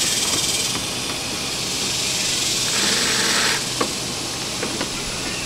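Ryobi cordless drill/driver, set to its lowest torque, running briefly about three seconds in as it drives a screw into the plastic bumper, followed by a few short clicks, over a steady hiss.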